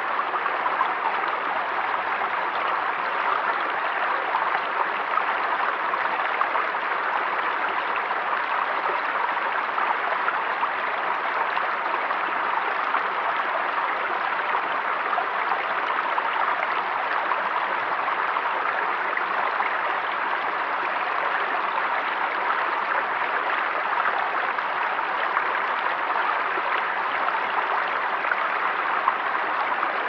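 Shallow stream running over rocks and a small cascade: a steady, even rush and babble of water that does not change.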